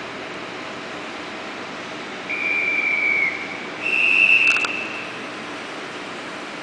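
Two blasts of a railway hand whistle, about a second each, the second higher and louder, giving the departure signal for the waiting electric train. A couple of sharp clicks fall during the second blast, over a steady station hum.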